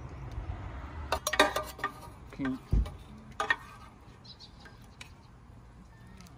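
Metal utensils clinking against a cooking pot and dishes: a quick run of clinks about a second in, a dull thump near the middle, one more clink, then it goes quieter.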